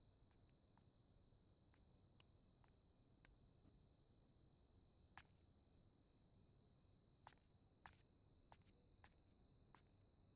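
Near silence: faint room tone with a thin, high, evenly pulsing chirp throughout and a few faint clicks, the clearest about five seconds in and several more between seven and ten seconds.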